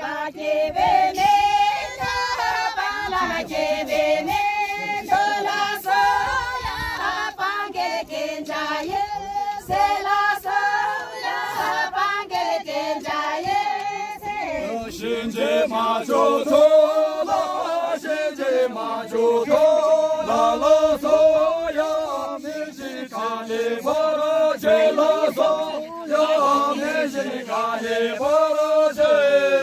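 A group of women and men singing a song together in chorus, with long held notes in a slow melody.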